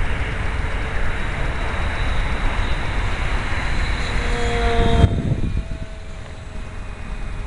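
Electric motor and propeller whine of a foamboard RC plane in flight: a thin, steady whine that slides down a little in pitch around four to five seconds in as the plane passes. Heavy wind noise on the microphone covers it until a bump about five seconds in, after which the wind noise drops away abruptly and the whine carries on faintly.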